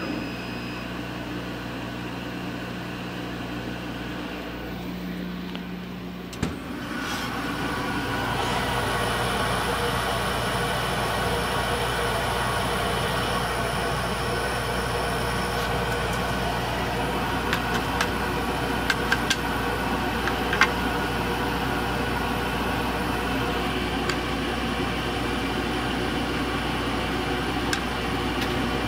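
Laser cutter's fans and air pump running with a steady hum and whoosh. The whoosh gets louder after a click about six seconds in. A few light clicks later on come from cut cherry-wood pieces being handled on the bed.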